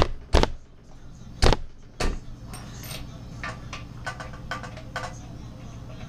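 Hands working parts on a Predator 212cc engine's cylinder head: four sharp knocks in the first two seconds, then a run of lighter clicks and taps.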